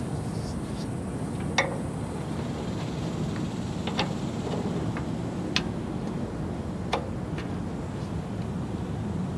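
A ratchet wrench and socket working the small retaining bolt of a Jeep Wrangler JK's rear wheel speed sensor: four sharp metallic clicks a second or so apart, with fainter ticks between, over a steady low rumble.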